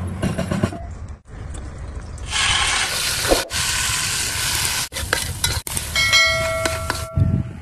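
Hot oil and spices sizzling in a metal cooking pot, with a ladle clicking against the pot while stirring. A short chime of several steady tones rings near the end.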